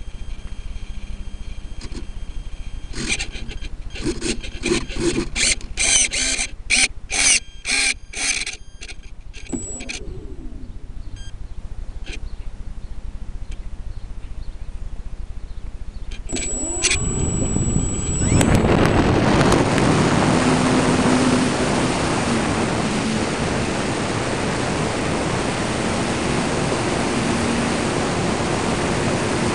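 Recorded from the model plane itself: a run of short noisy bursts, then a bit past halfway the electric motor and propeller spin up with a rising whine, followed by a steady loud rush of propeller and wind noise as the plane takes off and flies.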